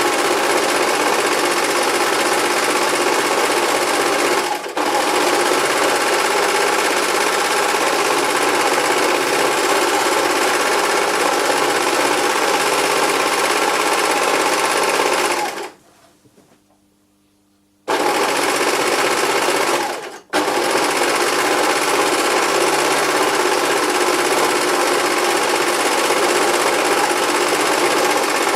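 Sewing machine running fast and continuously. It stops for about two seconds midway, then starts again abruptly at full speed, with two brief dips before and after the stop.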